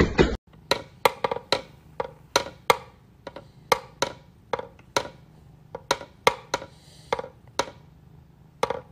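Wooden whack-a-mole cat toy clacking as a cat paws its pegs down, sharp wooden clicks coming irregularly, two or three a second, starting about half a second in.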